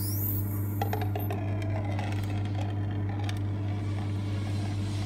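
Espresso machine pump running with a steady low buzz as a shot begins to pour from the portafilter. A few light clicks about a second in.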